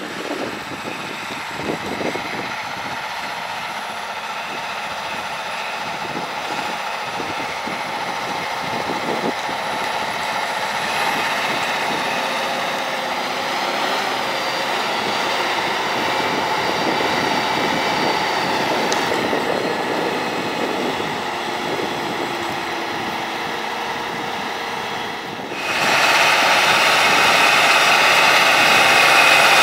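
John Deere 8RT-series tracked tractor running steadily under load as it pulls a cultivator through the soil, a continuous engine drone. Near the end it suddenly gets louder.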